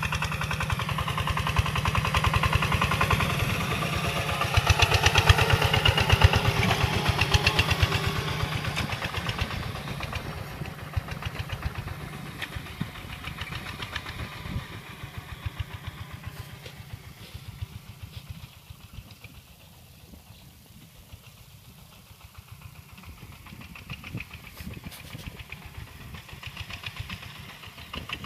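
Single-cylinder diesel engine of a two-wheel walking tractor running under load while ploughing dry soil, with a fast, even putter. It is loudest about five seconds in as the tractor passes close, fades as it moves away across the field, and grows louder again near the end.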